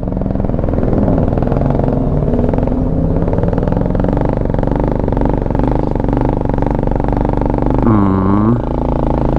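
Venom X22GT 250cc automatic motorcycle's engine, a Honda Helix-type single, running steadily while being ridden. The engine pitch dips and rises briefly near the end.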